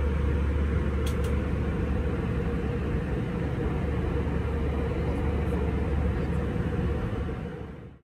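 Steady low rumble of a vehicle in motion, heard from inside.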